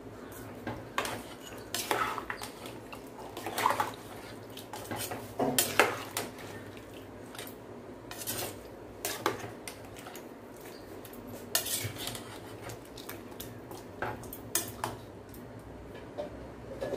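Metal ladle stirring a wet rice, dal and vegetable mixture in a pressure cooker pan, with irregular clinks and knocks against the metal.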